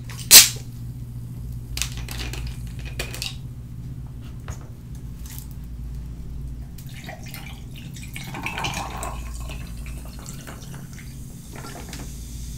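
A plastic water bottle's screw cap twisted open with one sharp crack, followed by a few light clicks. Later, water is poured from the bottle over ice cubes in a glass, trickling and splashing for a couple of seconds.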